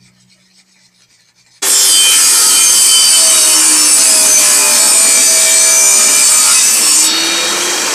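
Benchtop table saw running and cutting into the end of a wooden pallet slat. It starts suddenly about a second and a half in and goes on as a loud, steady rasp with a faint whine.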